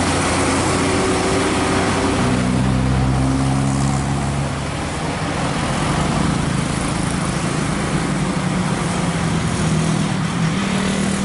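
Coach bus engine running under load as the bus takes a sharp U-shaped bend at low speed, with motorcycle engines close by. Its engine note holds steady from about two seconds in.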